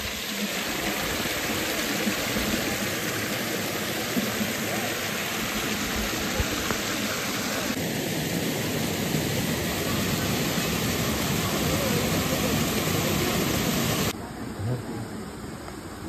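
Waterfall water rushing and splashing down rock chutes, a steady rush of white water. Its character shifts a little about halfway through, and it drops in level near the end.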